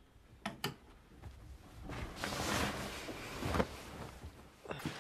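Two light clicks about half a second in, like a lamp switch, then a soft rustle of bedding that swells and fades over a couple of seconds.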